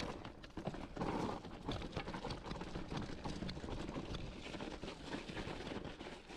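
Specialized Rockhopper hardtail mountain bike rolling down a rocky, gravelly trail partly covered in snow: the tyres crunch over loose stones and the bike rattles with a quick, irregular run of knocks and clicks, heaviest about a second in.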